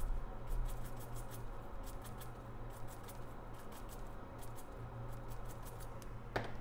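Small brush scrubbing over a removed A14 CPU chip during cleaning: a run of quick, irregular scratchy ticks over a steady low hum, with one sharper tick near the end.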